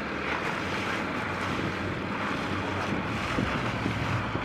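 Outboard motor of a small boat running steadily, with wind rushing over the microphone.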